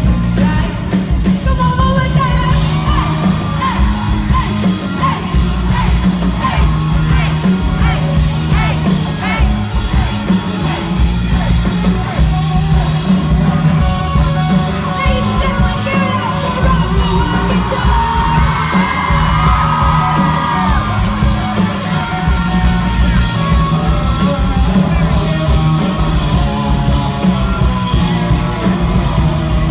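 Live pop-rock band playing loud in a large hall, with sung vocals and yelling over drums, bass and guitar, recorded from among the audience.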